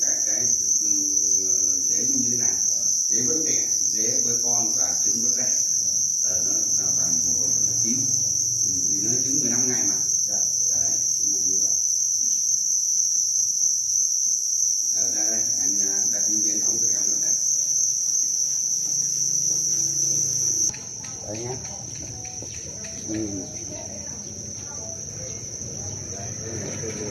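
A dense chorus of many farmed black crickets (two-spotted crickets) chirping without a break, a steady high trill from the breeding bins. About 21 seconds in it drops abruptly to a softer level but carries on.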